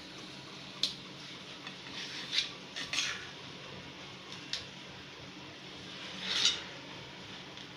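Kitchen knife slicing through a block of paneer on a stainless-steel plate, the blade tapping and scraping on the steel with each cut: about five short clicks, the loudest a brief scrape about six seconds in.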